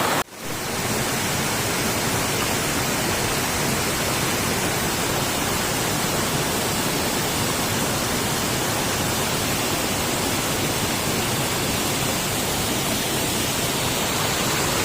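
Waterfall, falling water rushing in a steady, even hiss, cut by a brief drop-out just after the start.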